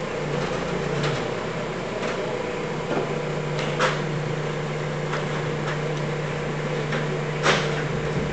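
Mini crane's engine running with a steady hum while it holds a sheet of OSB on its sling, with several sharp knocks, the loudest about four seconds in and again near the end.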